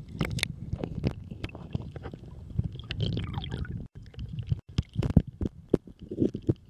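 Seawater sloshing and gurgling against a camera held at the surface, with irregular sharp clicks and knocks over a low rumble. The sound briefly cuts out twice around four seconds in as the camera goes under the water.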